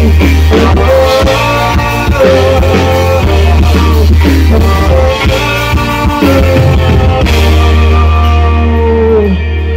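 Live pop-rock music from a band with a heavy, steady bass, guitar and a melody line. A long held note near the end closes the song.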